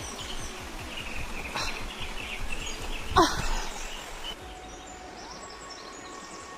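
Outdoor ambience: steady background noise with birds chirping. About three seconds in comes a brief, loud sound that falls quickly in pitch, and just after four seconds the background noise drops quieter.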